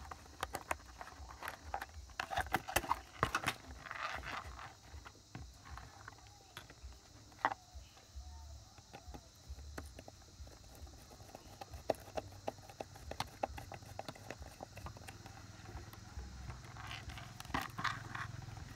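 Irregular small clicks, taps and knocks of hand work on the speaker's electronics, such as tools, screws and the small circuit card being handled. They are densest in the first few seconds and again near the end.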